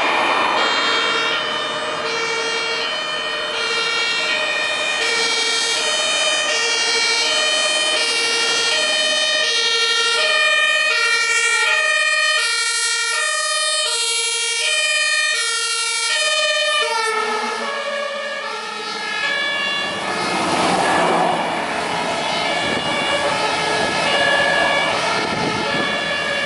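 German two-tone fire-engine siren (Martinshorn) alternating evenly between two notes, with its pitch dropping slightly about two-thirds of the way through. Heavy truck engine and tyre noise swells near the end as the fire engines go by.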